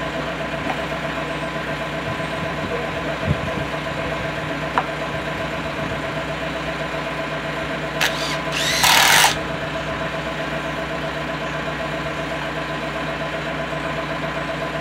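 Engine idling steadily. About eight seconds in, a cordless drill runs in two short bursts, a brief one and then a longer one, as it drives a screw into the wooden bracing.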